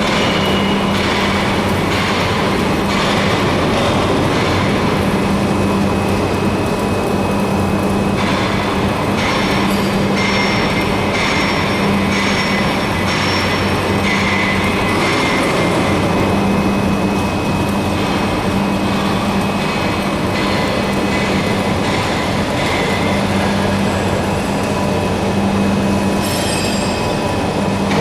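CNC plasma pipe-cutting machine running, its torch cutting a steel pipe into segments for a bend: a loud, steady hiss with a few thin high tones and a low hum that swells and fades every few seconds.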